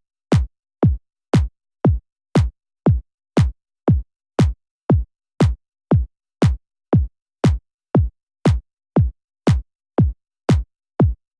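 A lone electronic kick drum playing a steady four-on-the-floor beat, about two hits a second, each hit a short click that drops quickly in pitch into a deep thud. Nothing else plays alongside it.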